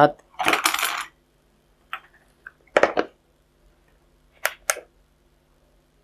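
Light handling clatter of a plastic UVW tester box and its leads being set down on the workbench: a short scrape near the start, then a few brief sharp clicks and knocks, the last two in quick succession.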